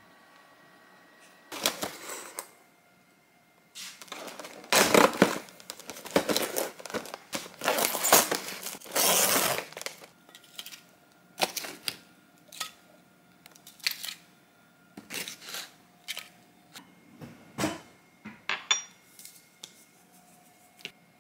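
Plastic wrap being peeled and torn off a plastic meat tray, crinkling loudly in dense bursts for several seconds. It is followed by scattered light taps and clicks of kitchen handling as meat is laid in a tray and a sauce bottle is opened.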